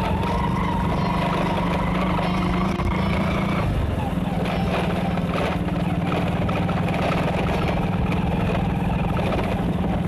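Motorcycle engine running steadily on a dirt road, its note dropping out briefly about four seconds in before picking up again.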